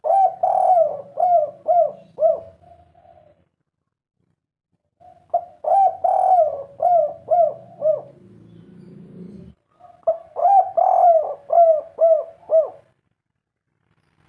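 Spotted dove (tekukur) cooing: three phrases of quick, repeated coos, each of about five or six notes, separated by short pauses.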